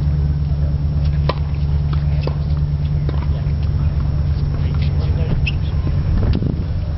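Steady low rumble of wind on the microphone, with a few sharp knocks of a tennis ball being struck by rackets, clearest about a second in and again a second later.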